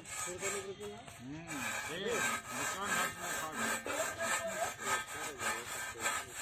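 Repeated scraping strokes of a flat metal blade on a long handle dragged over a singed pig carcass, rasping off charred hair and skin, at about three strokes a second.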